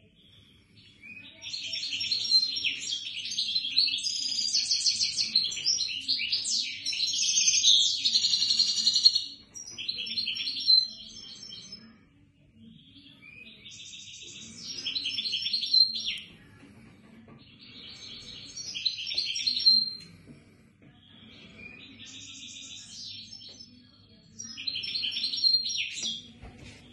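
A songbird singing: phrases of fast trills and chirps, first one long phrase of about eight seconds, then shorter phrases every few seconds.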